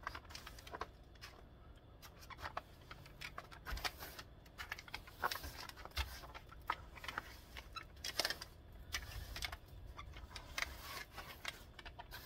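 Long-handled snow brush sweeping and scraping snow off a pickup truck's body, in faint, irregular strokes of swishing and scratching.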